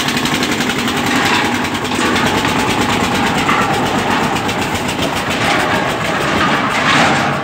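Tractor diesel engines running hard under load, a loud, steady, evenly pulsing engine sound, as they tow a loaded truck by chain.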